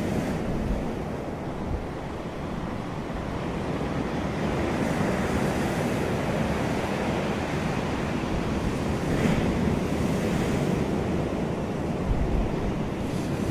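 Ocean surf breaking and washing up a beach: a steady rush of wave noise that surges louder several times. Low rumbles of wind buffet the microphone.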